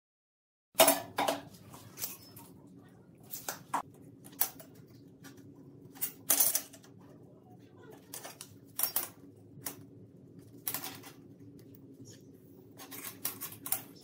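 A steel square and ruler clinking and tapping as they are set down and shifted against a flat steel bar on a steel table, in irregular sharp clicks over a low steady hum.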